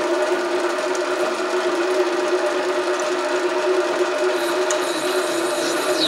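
SC2 mini lathe running with a steady whine while its cutting tool turns a Delrin bar down to diameter.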